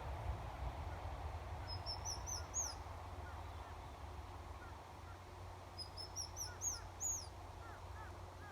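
A baby bird's high cheeping calls for its parent: two runs of about five quick notes, each rising in pitch and growing louder, about four seconds apart. A low rumble runs underneath.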